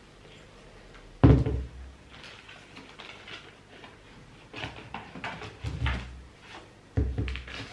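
Plastic jars of glitter and carded packs of glitter tubes being set down and handled on a table. A loud knock comes about a second in, then several lighter knocks, and another firm knock near the end.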